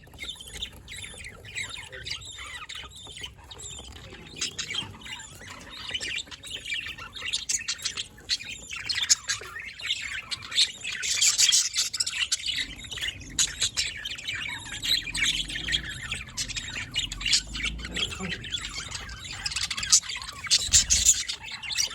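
Budgerigars chattering: a busy stream of quick high chirps, warbles and short squawks.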